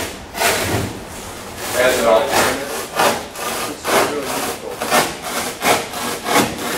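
Hand cutting of a foil-faced board along a straightedge: a series of irregular back-and-forth scraping strokes, roughly two a second.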